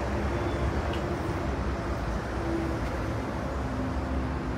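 Steady low rumble of road traffic from a nearby highway, with no clear single event.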